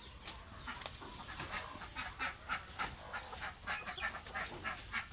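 Chickens clucking in a rapid run of short calls, about three a second, growing stronger over the last few seconds: panicked alarm clucking from startled birds.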